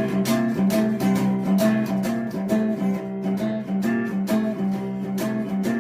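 Acoustic guitar intro, a steady strummed or picked chord pattern with a regular pulse.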